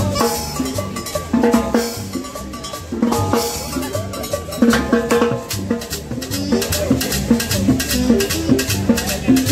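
Live band playing upbeat dance music, with conga and drum kit strokes to the fore over held instrument notes and a bass line.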